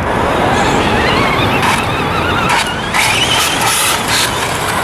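Electric RC trucks (a Traxxas Slash 4x4 and Summit) driving on a gravel lot: motor whine rising and falling with the throttle, over steady tyre noise, with a few short bursts of noise.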